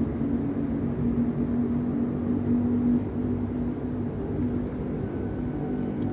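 A steady, low mechanical drone with a held hum, like a distant engine or machine running.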